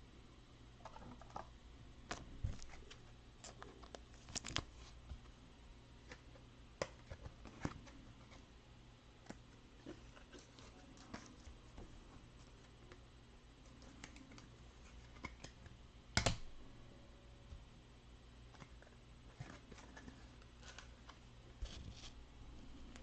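Chromium Panini Prizm soccer cards being handled on a tabletop playmat: scattered faint clicks, taps and slides of card stock, with the sharpest tap about sixteen seconds in, over a low steady hum.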